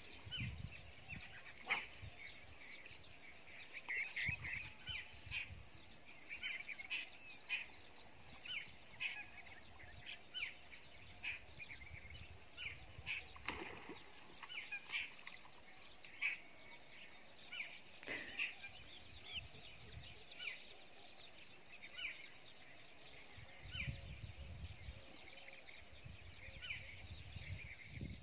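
Birds chirping and calling, many short notes scattered throughout, over quiet open-air ambience with a few brief low rumbles on the microphone.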